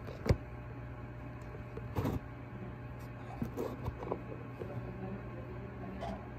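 Handling noise of a phone being set up by hand: a sharp knock just after the start, another couple of knocks about two seconds in, and lighter bumps and rubs around three to four seconds, over a steady low hum.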